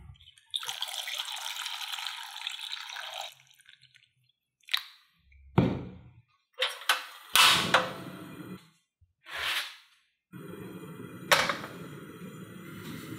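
Water poured from a jug onto potato chunks in a small nonstick pan, a steady splashing pour for about three seconds. Then several knocks and clunks as the pan is handled and set down on a portable gas stove, a sharp click about eleven seconds in, and the steady low rush of the lit gas burner.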